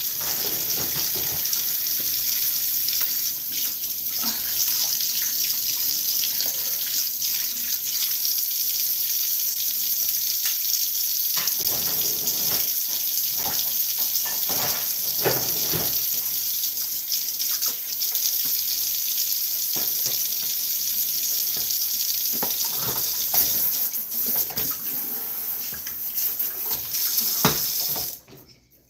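Kitchen tap running steadily into a sink, with a few knocks and clatters, then turned off suddenly near the end.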